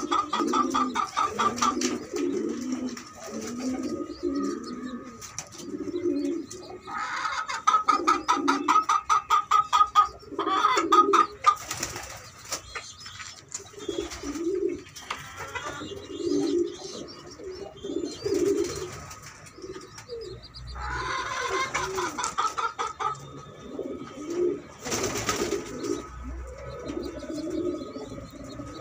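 Domestic pigeon cooing softly and repeatedly in its nest while its squabs, reaching to its beak to be fed, give rapid pulsed squeaky begging calls in two longer bouts.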